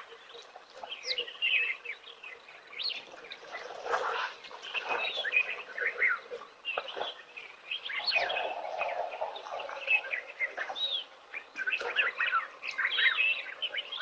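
Several birds chirping, many short calls overlapping one another.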